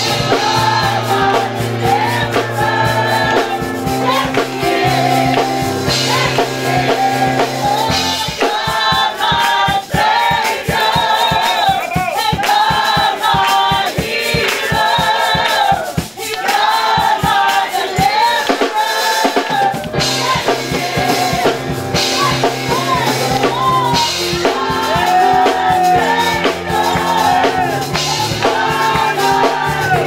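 Gospel choir singing together, accompanied by drums and a low bass line. The bass drops out about eight seconds in and comes back around twenty seconds, while the singing and drums carry on.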